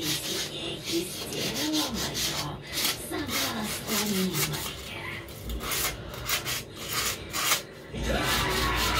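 Rapid back-and-forth hand scrubbing over ceramic wall tiles and fresh grout, about four strokes a second, with sandpaper or a pad rasping on the glazed surface.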